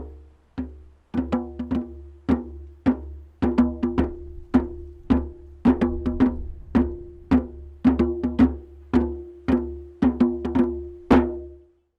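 Percussion beating a steady rhythm of hollow, pitched strikes, about two a second, over a low steady drone. It stops shortly before the end.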